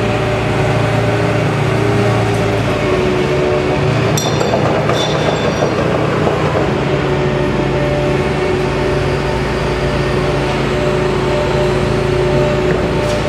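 Hitachi ZAXIS 200 hydraulic excavator running under load, engine and hydraulics humming steadily as its grapple lifts a heavy rusty steel slab into a scrap shear's feed box. A brief high metallic ringing comes about four seconds in.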